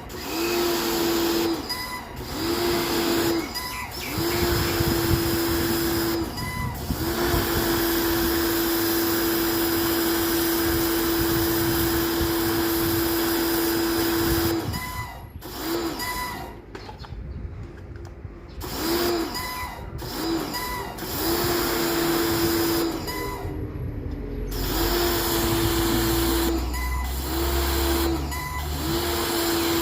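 An electric motor humming in short runs of about a second, stopping and starting again with a brief dip in pitch each time, with one longer run of about seven seconds, over a steady rush of water.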